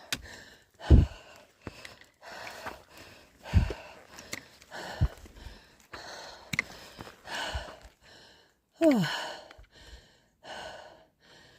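A hiker's heavy, laboured breathing on a steep climb, breaths in and out about once a second, with a falling groan about nine seconds in.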